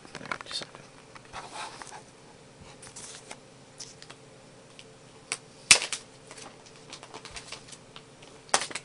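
Handling noise from an iPod touch and its plastic packaging: crinkling and rustling of plastic with scattered small clicks and taps, and two sharper, louder clicks, one about six seconds in and one near the end.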